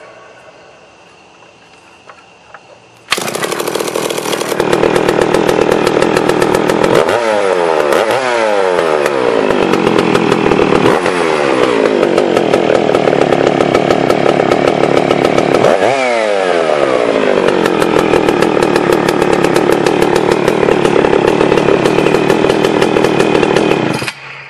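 Homelite 750 two-stroke chainsaw starting abruptly about three seconds in, after a few small clicks. It then runs and is revved several times, the pitch falling back after each rev, and shuts off suddenly just before the end.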